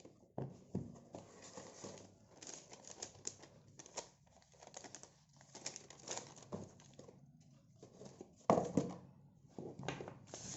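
Smartphone box and its wrapping being handled and opened by hand: irregular rustling, crinkling and small clicks, with a louder burst about eight and a half seconds in.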